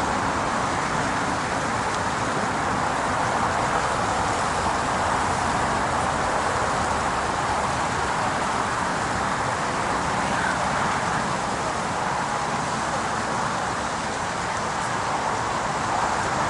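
Steady rushing noise of highway traffic, with no single vehicle passing out of it.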